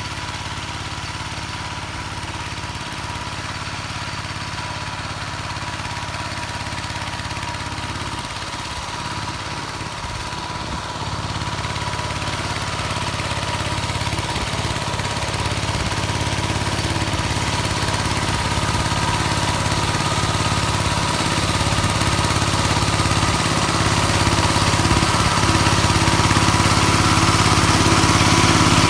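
Engine of a homemade tractor converted from a walk-behind tractor, running steadily under load while rotary tilling, growing gradually louder.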